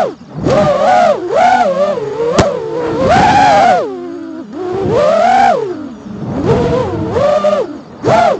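FPV quadcopter's motors and propellers whining, heard from the onboard camera, the pitch rising and falling in repeated throttle bursts with short dips between them. A sharp click comes about two and a half seconds in.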